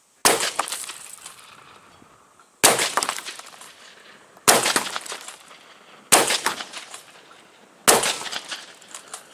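Adler B230 straight-pull 12-gauge shotgun firing five shots of 00/SG buckshot with a full choke, about two seconds apart, each shot followed by an echo that dies away.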